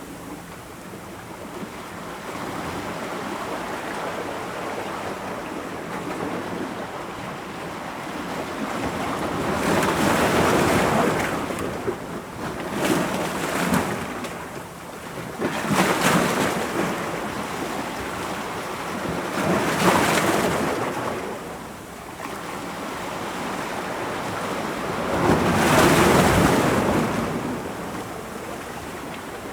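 Ocean waves breaking on rocks: a steady wash of surf with about five louder crashes, each swelling and falling away over a second or two.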